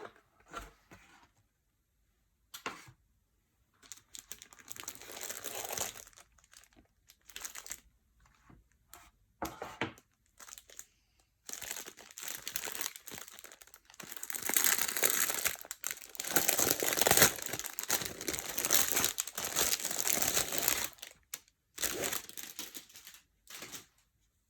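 Packaging being handled and unwrapped, crinkling and rustling in irregular bursts that come on and off, busiest and loudest in the second half.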